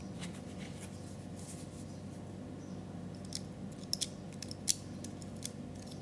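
Tiny sharp metallic clicks and ticks from the action of a 1:3.5-scale miniature Mauser 98k rifle as its small parts are pressed with a wooden toothpick. A few faint ticks come first, then a run of crisper clicks about three to five seconds in, the loudest near the end.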